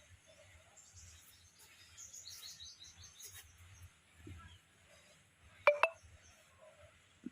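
High, quick chirps of small birds in short runs, with a sharp double knock a little over five and a half seconds in.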